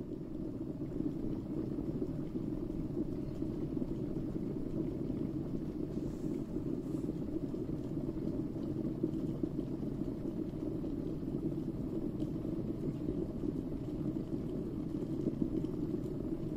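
Electric kettle heating water: a steady, low, even noise with no speech.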